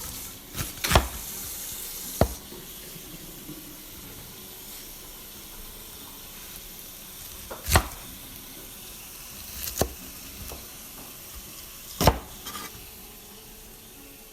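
Food sizzling in a pan, a steady hiss, with several sharp clicks or knocks of utensils spread through it.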